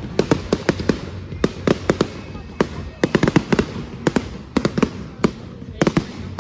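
Fireworks going off: dozens of sharp bangs and crackles in irregular clusters, several a second.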